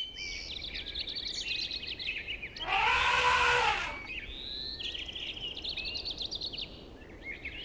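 An elephant trumpets once, loud and brassy, for about a second and a half, beginning some two and a half seconds in. Small birds chirp steadily around it.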